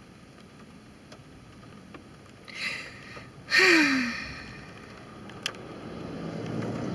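A person draws a quick breath, then lets out a voiced sigh that falls in pitch, over a faint steady hiss of rain. A low rumble swells near the end.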